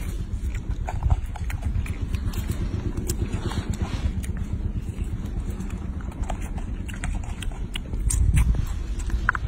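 Baby macaque chewing and smacking on longan fruit, making scattered small clicks over a steady low rumble.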